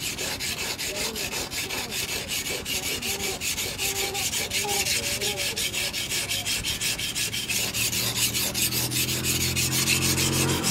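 Steel knife blade being honed on a wet whetstone, rapid back-and-forth rubbing strokes several times a second. A steady engine hum comes in near the end.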